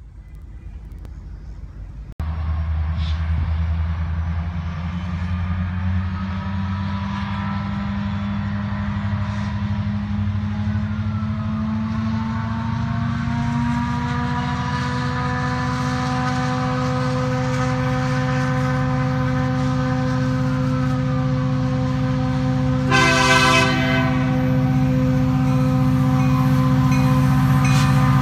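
Union Pacific diesel locomotive approaching with an autorack train, its engine drone growing steadily louder. The locomotive's air horn sounds for the crossing in long held tones, with one short, louder blast a few seconds before the end.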